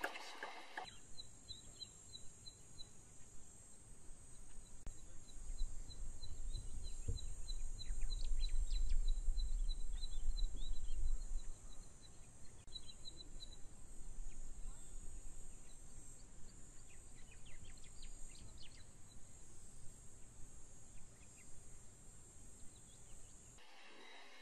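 Outdoor bush ambience: a steady high insect drone, long runs of quick, high chirps, and a low rumble that swells from about five seconds in and drops away about eleven seconds in.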